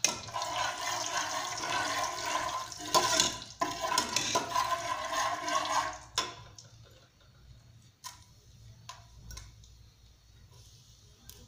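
Spice masala sizzling in hot oil in an aluminium pressure-cooker pot while a metal ladle stirs and scrapes it. The loud sizzle dies down about six seconds in, leaving a quiet background with a few light clicks of the ladle against the pot.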